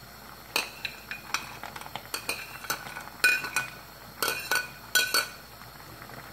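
A metal ladle clinks and scrapes against a china plate and the rim of a stainless steel pot as okra is pushed off the plate into the pot. The clinks come as a run of about a dozen sharp, ringing knocks, the loudest near the middle and about five seconds in, then die away as the stirring starts.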